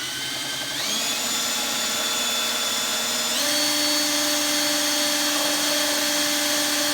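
Electric drill spinning a drill-powered transfer pump, a steady whine that steps up in speed about a second in and again about three and a half seconds in, then holds. The pump is running while it primes and gets its suction going to draw water out of a dishwasher sump.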